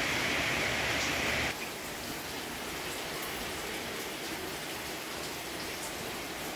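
Gas stove burner hissing steadily under a stack of charcoal briquettes, cutting off sharply about a second and a half in; after that, a steady patter of rain.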